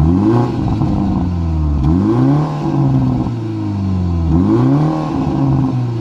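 BMW 330i's 2.0-litre turbocharged four-cylinder revved three times through its twin exhaust tips, each rev rising quickly and falling back slowly toward idle.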